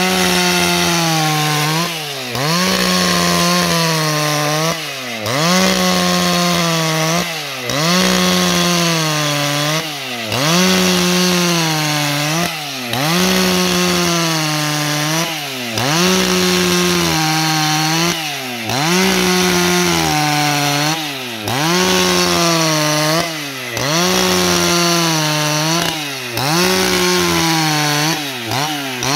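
Husqvarna 281 XP two-stroke chainsaw at full throttle, ripping lengthwise along a long wooden beam. The engine note sags under load and recovers about every two and a half seconds as the bar is worked along the cut.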